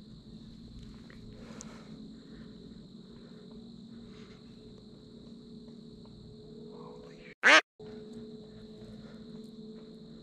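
Evening woodland ambience dominated by a steady high-pitched insect drone. About seven seconds in, one short, loud sound with a sweeping pitch cuts in, followed by a brief dropout.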